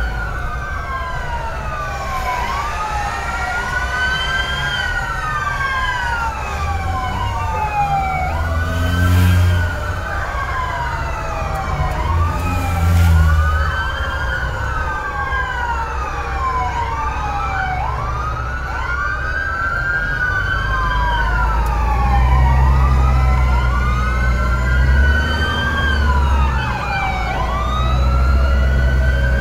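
Several fire engine sirens wailing at once, their rising and falling tones overlapping out of step. Low steady tones join in underneath at times.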